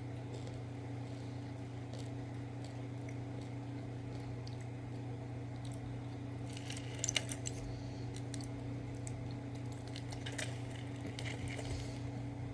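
Crinkling and clicking of a plastic candy blister pack as a chocolate is pushed out of it, in short spells about halfway through and again near the end. A steady low hum sits underneath.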